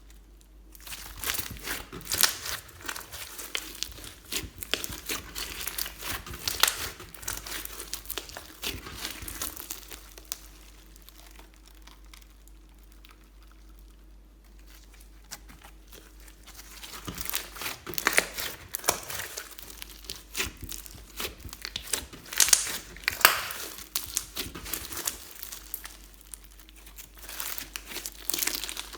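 Slime being kneaded and pressed by hand, with dense crackling and popping in two long bouts and a quieter lull in the middle.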